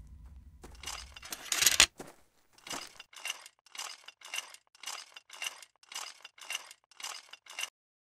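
A noisy rush that swells to a loud peak and cuts off about two seconds in. It is followed by about a dozen short, gritty scraping strokes, roughly two a second, as of a hand tool being worked hard.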